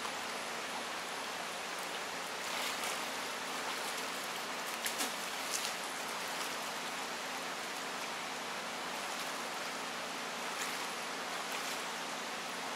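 Steady rush of a shallow river running over stones, with a few brief splashes from someone wading through the water.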